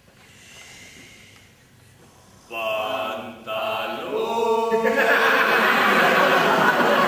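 Group of voices chanting together. They come in about two and a half seconds in after a quiet start, and grow into a louder, denser mass of voices from about five seconds.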